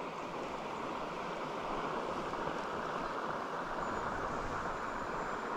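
Steady rush of fast river current running through a riffle.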